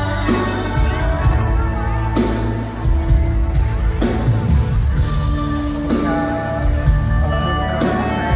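Live band music played loud through a PA, with guitar and a drum beat.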